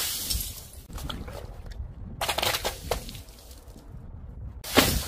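Objects dropped down a chute bursting and smashing on paving tiles: a loud wet splat at the start as a water-filled balloon bursts, scattered crackling in the middle, and another loud smash near the end.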